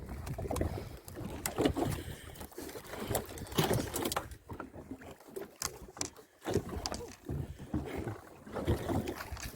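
A fishing longline being hauled by hand into a small boat, with irregular splashing, knocks and rattles as line and hooked fish come over the side.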